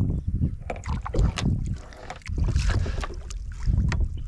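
Gusty wind buffeting the microphone, with short splashes and sloshing of water as a hooked brown trout thrashes at the surface beside a kayak.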